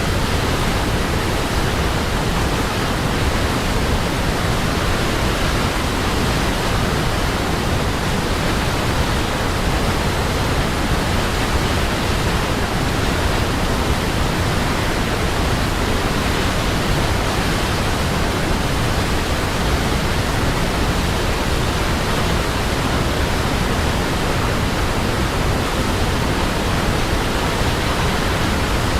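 Waterfall: water falling in a steady, even rush with no breaks or changes.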